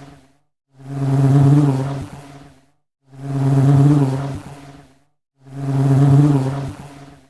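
Honey bee buzzing in three near-identical passes, each swelling up and dying away over about two seconds with short silences between, like a looped fly-by.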